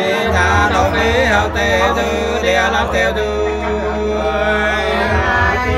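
Singing with music: wavering voices over a steady low bass note that drops out about five seconds in.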